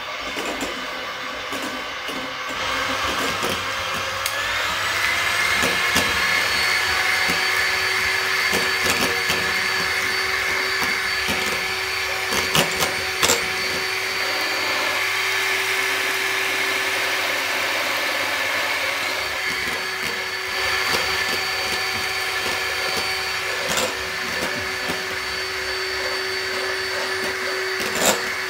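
Hoover Automix 8924 food mixer running, a steady electric motor whine that rises in pitch as it speeds up about four seconds in, then holds steady, with a few sharp clicks along the way.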